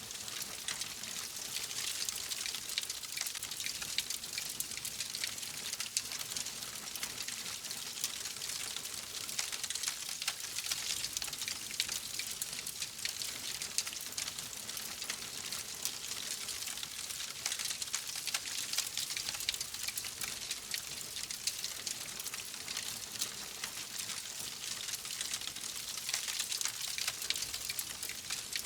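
Wood fire burning in a fireplace: a steady hiss with a dense run of small crackles and pops.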